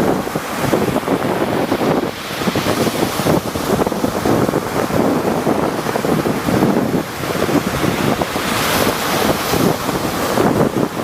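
Rough sea surf: waves breaking and washing in a continuous rush that swells and ebbs, with wind buffeting the microphone.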